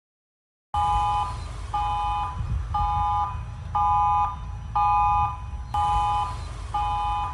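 Emergency-alert-style alarm: a chord of beeps around 1 kHz, each about half a second long, repeating about once a second over a steady low rumble. It starts suddenly just under a second in.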